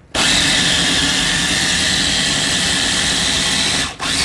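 Electric food processor motor running steadily at full speed, pureeing a thick bean dip thinned with a little water. It cuts out briefly near the end and starts again.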